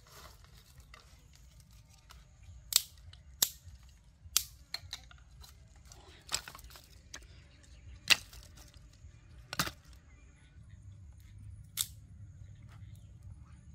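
Dry sticks cracking and knocking as firewood is laid over the fire pit's ashes: about seven sharp, separate snaps, a second or more apart.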